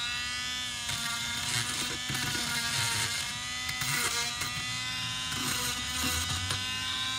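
Dremel rotary tool with a grinder bit running, a steady motor whine that wavers in pitch as the bit is pressed on, with a gritty grinding noise over it as it files down sharp ceramic and grout edges on a mosaic piece.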